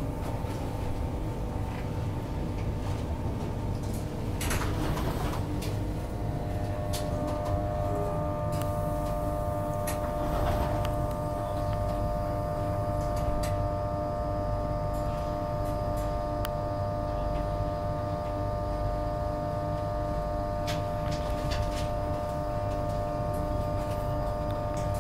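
Inside an Intercity 225 passenger coach as the train draws into a station and comes to a stand: low steady running rumble, with a steady hum of several pitches setting in about six or seven seconds in, and a few light clicks and knocks.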